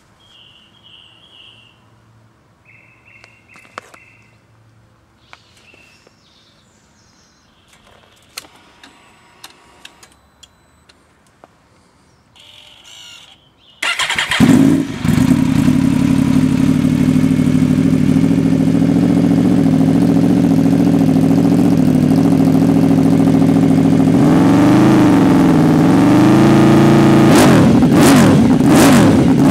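Quiet for about the first half, with a few faint short beeps and clicks. Then an Aprilia RSV4's V4 engine starts and idles steadily through a Fuel Exhausts F1R prototype carbon-fibre end can. There is a gentle throttle blip, and near the end it is revved in several quick blips.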